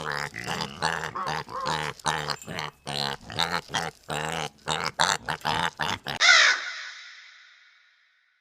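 An animal calling over and over in quick, short, harsh calls, a few a second, for about six seconds. Then one loud swept sound that echoes away over about two seconds.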